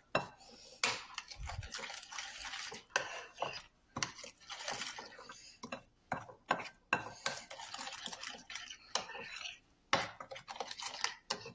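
A spoon stirring and scraping around a bowl, mixing a thick seasoning paste of spices, oil and blended green seasoning, with irregular clinks against the bowl.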